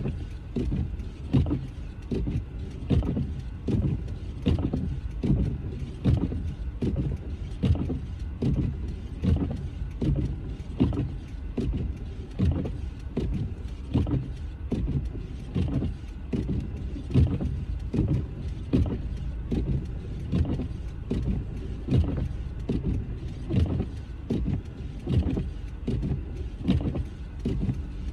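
Inside a car driving through heavy snow: windshield wipers sweeping back and forth, each stroke a soft thump, about one and a half a second, over steady road rumble.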